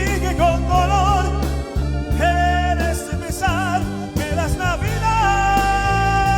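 Song with a solo voice singing short phrases with strong vibrato over a steady bass and band accompaniment, then holding one long note from about five seconds in.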